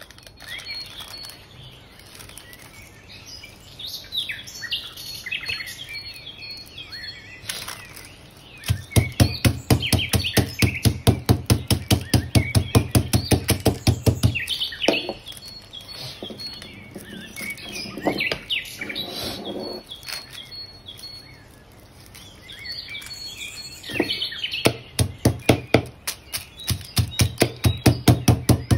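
A wooden log pounding a chicken breast wrapped in butter paper on a wooden table to flatten it. The blows come in two runs of quick, even knocks, one about a third of the way in and one near the end, with a few single knocks between. A recorded track of birds chirping plays throughout.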